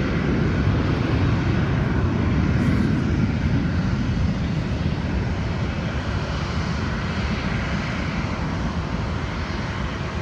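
Rumbling roar of a Gulfstream III's hush-kitted Rolls-Royce Spey turbofan engines, heard from a distance and slowly fading as the jet climbs away after takeoff.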